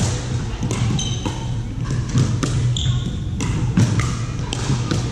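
Pickleball paddles hitting a plastic ball and the ball bouncing on the hardwood court: an irregular series of sharp pops, two to three a second, over a steady low hum, with a few brief high squeaks.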